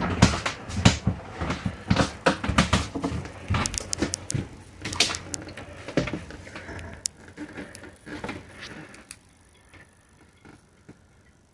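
Irregular knocks, thumps and clicks of someone stepping down through a boat's cabin doorway into the cabin, with the camera being handled. The knocking is busiest at the start and dies away after about nine seconds.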